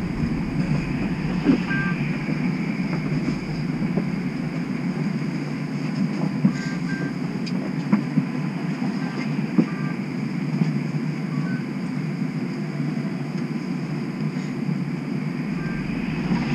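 Streetcar standing at a stop, its equipment giving a steady low hum inside the car, with a few faint clicks.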